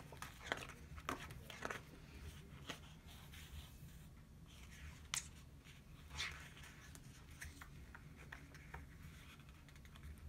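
Sticker book sheets being flipped and handled: soft paper rustles and a few light taps and clicks, over a faint steady low hum.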